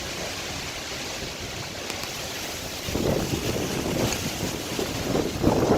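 Tornado winds rushing and buffeting the microphone, growing louder and gustier about three seconds in.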